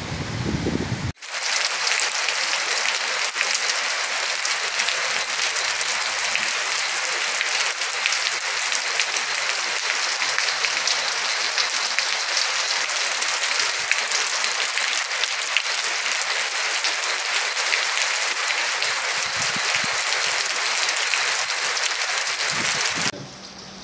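Heavy rain pouring steadily onto a hard surface, a dense even hiss. A lower rumble cuts off about a second in, and the rain stops abruptly near the end.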